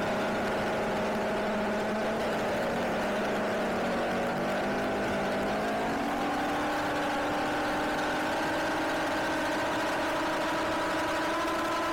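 Car engine running steadily, its pitch stepping up partway through as the revs rise.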